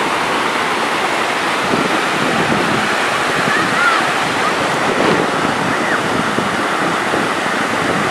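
Small ocean surf breaking and washing up the beach at close range: a steady rush of water.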